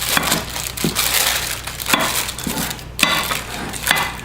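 Parchment paper crinkling and scraping as a crumbly butter-and-flour crust is pressed flat into a pie pan, with a few sharp knocks.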